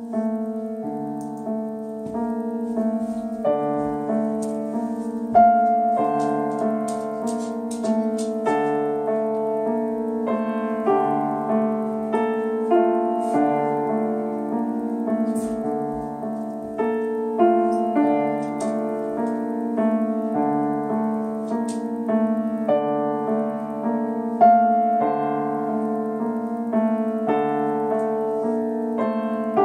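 Solo piano playing a gentle, flowing piece. A low note repeats about every one and a half seconds under held middle notes, with a melody moving above.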